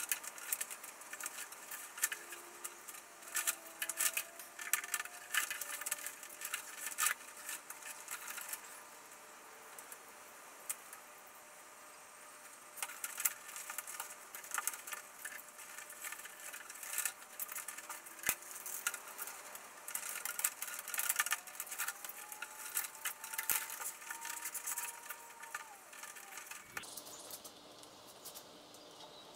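Bundles of electrical cables being handled and pulled through a hole in a wooden bench: irregular rustling, scraping and light clicking of the plastic-sheathed wires.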